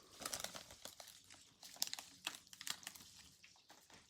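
Faint crinkling and rustling of a foil Pokémon booster pack wrapper being handled, with scattered small clicks.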